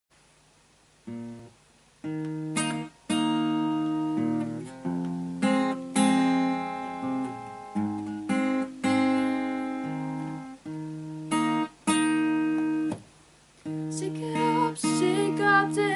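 Acoustic guitar played solo, chords strummed and left to ring, starting about a second in.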